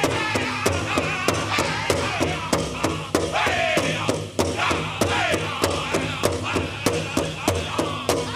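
Powwow big drum struck in unison with a steady fast beat, about three beats a second, while the drum group sings a chicken dance contest song.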